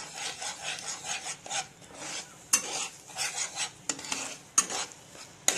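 A metal spatula stirring and scraping scrambling eggs in a nonstick kadhai, the eggs sizzling in hot oil. The strokes come in quick, uneven scrapes, with a few sharp clicks where the spatula knocks the pan.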